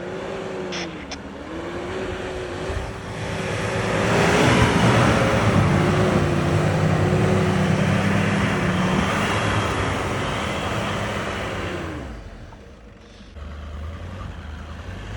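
Off-road SUV engine running hard under load in deep snow. It gets louder over the first few seconds, with a wavering higher tone over the engine note, then eases off about twelve seconds in.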